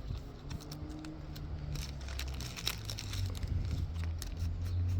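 Trading cards being handled and flipped: light scattered clicks and rustling over a low steady rumble.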